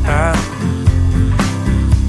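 Background music: a pop song with a brief sung phrase early on over a steady beat of about two hits a second.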